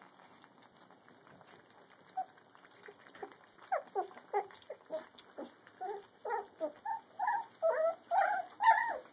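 Litter of two-and-a-half-week-old puppies crying. After a few quiet seconds, many short cries begin and come faster and louder toward the end.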